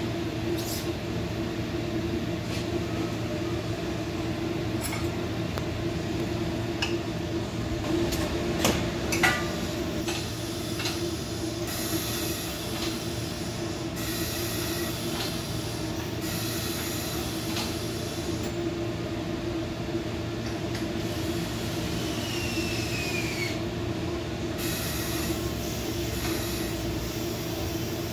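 Tire-mounting work on a motorcycle tire in a shop: a steady machine hum with hiss that comes and goes, a few sharp metallic knocks about eight or nine seconds in, and a short falling squeal later on.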